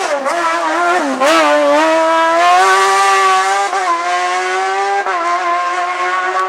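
Race car engine accelerating hard on a hillclimb. Its pitch climbs and drops sharply at each gear change, about a second in, near four seconds and again around five seconds.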